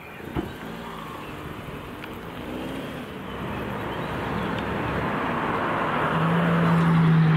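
A road vehicle approaching, its engine and tyre noise growing steadily louder, with a steady low engine hum coming in near the end.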